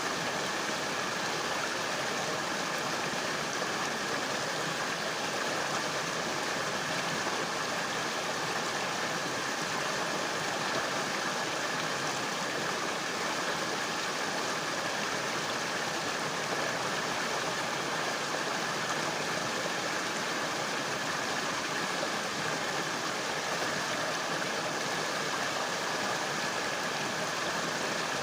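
River water flowing, an even, steady rushing that does not change in level.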